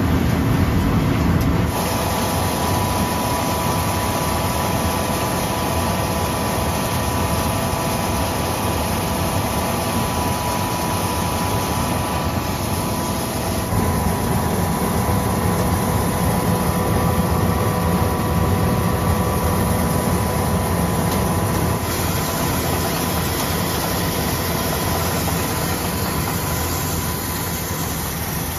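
Threshing machine, with the tractor that drives it, running steadily while threshing bean plants: a constant mechanical drone with a steady whine over it.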